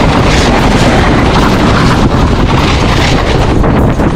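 Wind buffeting the microphone: a loud, steady rushing rumble with no breaks.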